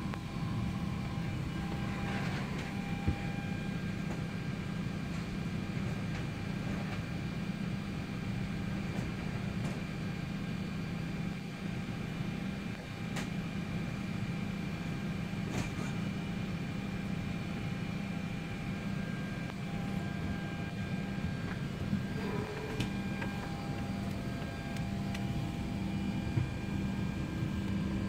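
Steady hum of an airliner cabin's air-conditioning in a Boeing 787 parked at the gate, with a few faint clicks scattered through it.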